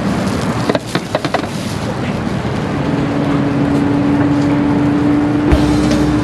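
Street traffic: steady vehicle engine noise with a steady hum from about three seconds in, and a quick run of clicks about a second in.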